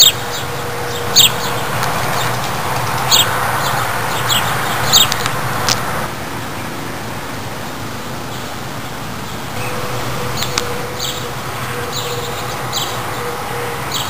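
Birds chirping: short, high chirps every second or so, in two clusters, over a steady background hum.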